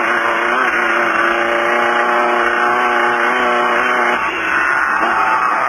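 Engine of a Beetle-based desert off-road race car running at steady revs under way, heard from inside the car. About four seconds in the revs drop and the note breaks up briefly, then picks up again near the end.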